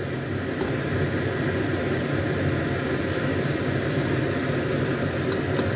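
A beef and apple-gourd (tinda) curry bubbling in a pot over a gas burner: a steady, low rumbling hiss with no breaks.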